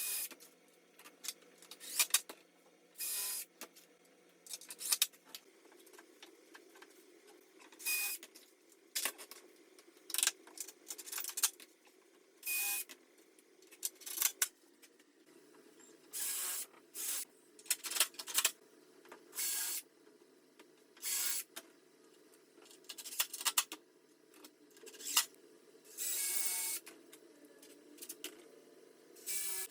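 Cordless drill driving screws into plywood in short bursts of about half a second to a second, repeated many times, with clicks and knocks of parts and screws being handled between bursts.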